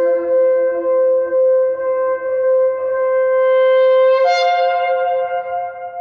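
A ram's-horn shofar blown in one long held blast, stepping up to a higher, brighter note about four seconds in and tailing off at the end.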